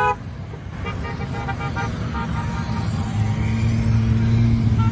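Parade motorcycles riding past, with a run of short horn beeps about a second in, then a motorcycle engine growing louder and rising slightly in pitch as it draws near.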